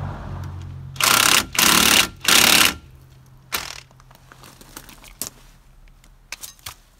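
Cordless impact wrench hammering in three short bursts, about a second in, running down the brake caliper's two backing bolts; a few light clicks and knocks of the tool follow.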